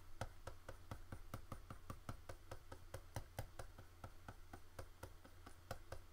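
Rapid, irregular light tapping clicks, about five or six a second: a pen dabbing on a graphics tablet while colouring digitally.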